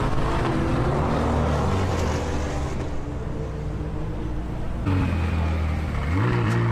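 Supercar engines running, in short clips with abrupt cuts between them; about six seconds in, one engine's note rises as it revs up.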